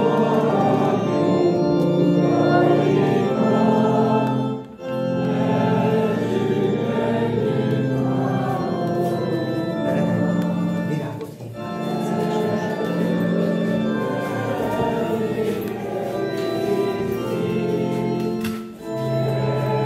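Organ playing a slow hymn tune in held chords, with a congregation singing along; the music pauses briefly between lines about every seven seconds.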